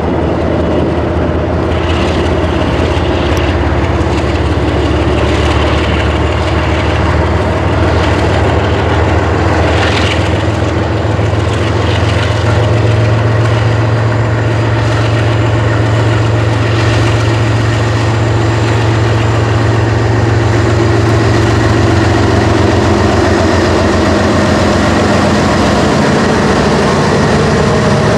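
The diesel-electric locomotives of a loaded grain train, a BNSF GE ES44AC leading an EMD SD70MAC, pulling under power as they come close and pass: a steady, heavy, low engine rumble that grows louder. Two brief, sharper sounds come through about two and ten seconds in.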